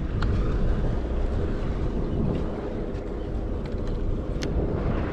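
Charter fishing boat's engine running with a steady low rumble, with wind on the microphone and a couple of faint ticks.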